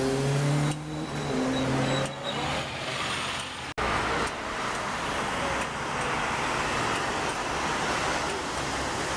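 Street traffic. A road vehicle's engine runs with its pitch rising and falling, then after an abrupt cut about four seconds in there is a steady noise of traffic as a city tram approaches along its tracks.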